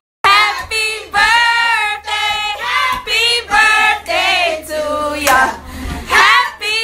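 A group of voices singing together in held notes, after a short gap at the very start.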